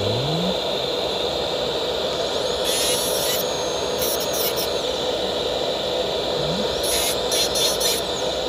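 Dental lab micromotor handpiece running steadily with a diamond cutting disc, whining, with two spells of high-pitched grinding, about three seconds in and again near the end, as the disc cuts into the porcelain of a metal-ceramic bridge.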